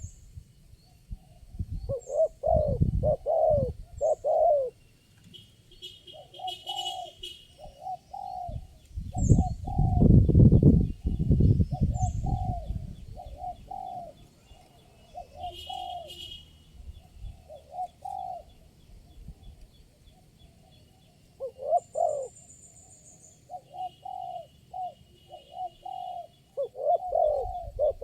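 Spotted doves cooing: phrase after phrase of short, low, repeated coos. A louder low rumbling noise comes in around ten seconds in, and faint high chirps of small birds come and go.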